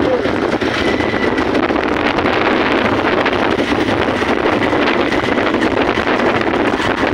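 Steady rush of wind buffeting the microphone on a moving motorcycle, over the motorcycle's engine running.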